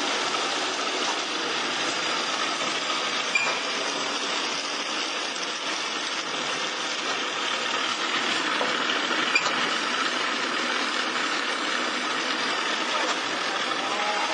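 Automatic drinking-straw packing machine running: a steady, even mechanical whir, with an occasional faint sharper tick.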